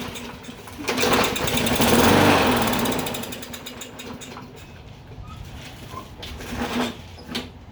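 Toro lawn mower's small engine being pull-started. It sputters with rapid firing for about two seconds from about a second in, then fades without running, which the owner takes for bad old fuel gumming up the carburetor.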